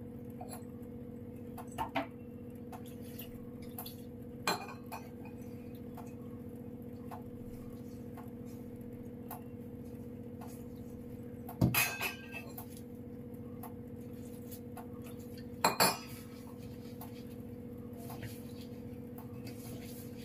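Chapati dough being kneaded by hand in a stainless steel plate: scattered light clicks and a few sharp metallic clinks and knocks as the plate shifts on the counter, the loudest about twelve and sixteen seconds in. A steady hum runs underneath.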